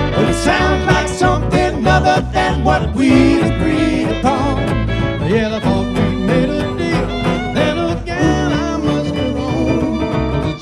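Bluegrass string band playing, with fiddle and guitar over a steady beat.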